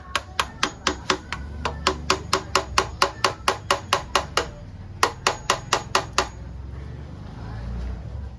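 Metal being hammered in quick strokes, about five blows a second, each with a short metallic ring. There are two runs: a long one, then a pause of about half a second, then a shorter run.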